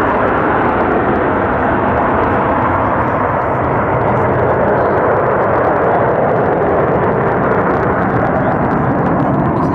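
F-35B Lightning II jet engine running loud and steady at high power while the aircraft hovers, an unbroken rush of jet noise with no rise or fall.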